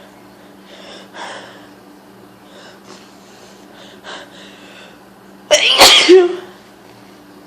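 A woman sneezing once, loud and sudden, about five and a half seconds in, from hay fever.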